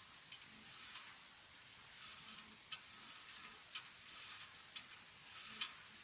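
Faint rustling of low berry bushes being picked through by hand, with a few short sharp clicks scattered through it.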